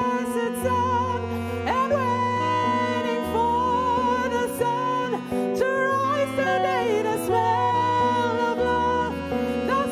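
Live jazz: a woman's voice sings a gliding, wordless melody over archtop guitar chords, with long low bass notes changing every second or two underneath.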